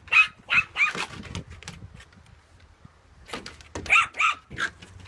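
Small dog barking in short, high-pitched yaps: a quick run of them in the first second and a half, a pause of about two seconds, then three or four more.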